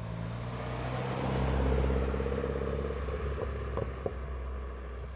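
A Mini Cooper convertible's engine running at low speed as the car drives past, swelling to its loudest about two seconds in and then fading as it moves away. Two short clicks come about four seconds in.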